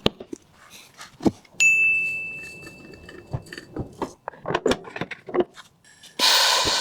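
Clicks and knocks of hard objects being handled, with one sharp metallic strike about one and a half seconds in that rings on a single high tone for about two seconds. A loud hiss starts near the end.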